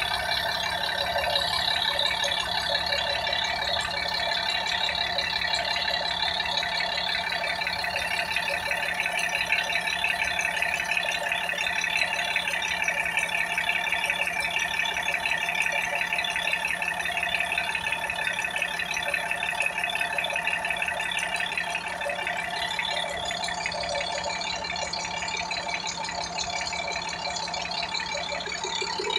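Car engine running, heard close up in the engine bay, with a steady, dense, fast rattling clatter throughout and a faint steady low hum underneath.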